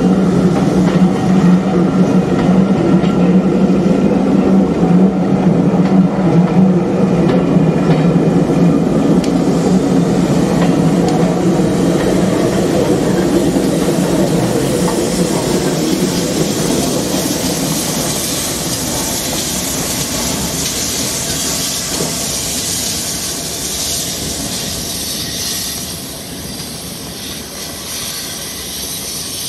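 Steam-hauled train of passenger coaches rolling slowly past, wheels clicking over the rail joints over a steady low rumble. The rumble fades as the steam locomotive and its tender go by, and a steam hiss rises in its place.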